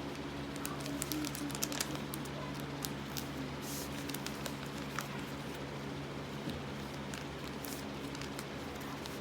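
Paper being handled and folded: light crackles and rustles, most of them between about half a second and three and a half seconds in, over a steady low hum.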